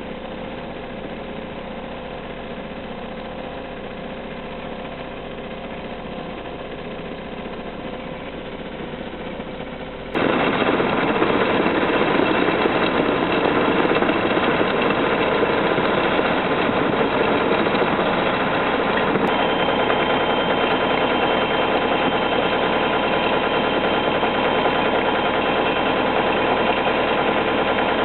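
Caterpillar tracked excavator's diesel engine running as the machine travels on its tracks. About ten seconds in, the sound steps abruptly louder and stays steady.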